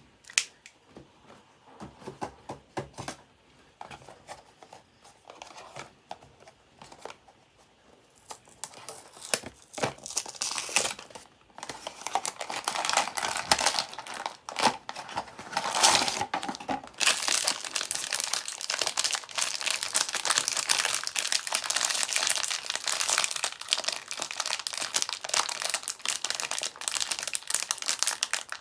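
Scattered taps and clicks from handling a small cardboard blind box, then a foil figure wrapper being crinkled and torn open, a dense crackle that runs almost without break through the second half.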